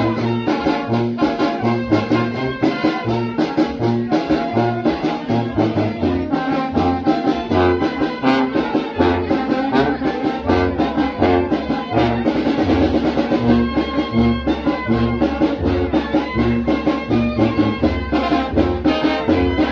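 A Mexican banda (brass band) playing: trumpets and trombones carry the tune over a low bass line that steps back and forth between notes in a steady rhythm, with drums.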